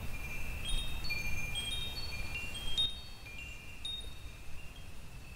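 Wind chimes ringing: a scatter of high, clear tones struck one after another, each left to ring on and overlapping the next, over a low rumble.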